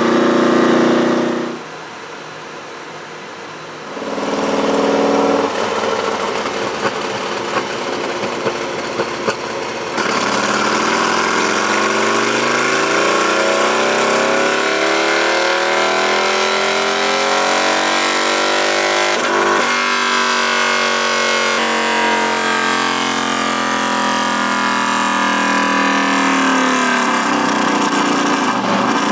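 Harley-Davidson Road Glide Special's V-twin engine running with its newly installed Screamin' Eagle Stage 2 cam, quieter for a couple of seconds early on, then revved again and again, its pitch rising and falling.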